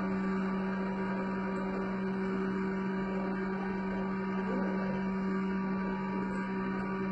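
Hydraulic surface grinder running with its grinding wheel spinning: a steady motor hum that holds the same pitch throughout.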